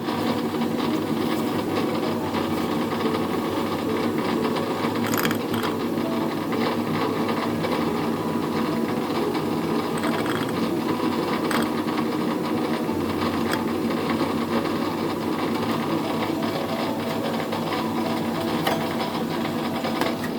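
Car engine idling with a rapid mechanical clatter from the clutch and gearbox area, with a few sharper clicks. The knock at idle is traced by the owner to play in the pilot bearing in the flywheel, the support bearing for the gearbox input shaft.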